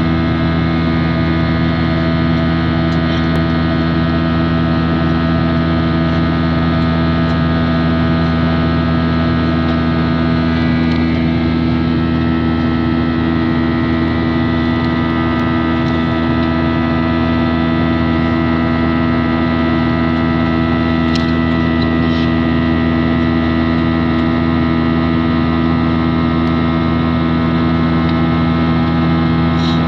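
Steady drone of an airliner's engines heard inside the cabin: a loud, unchanging hum with several steady tones, with a couple of faint clicks about two-thirds of the way through.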